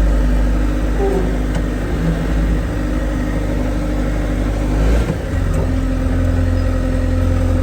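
Farm loader's diesel engine running steadily under work, heard from inside the cab; its note dips briefly about five seconds in.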